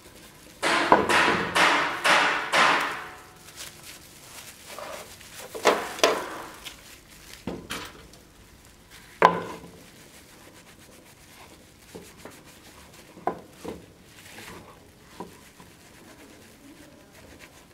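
Cloth and plastic-gloved hands rubbing over a dagger's hilt: a run of quick scrubbing strokes near the start, then scattered handling knocks and taps, with one sharper knock about halfway through.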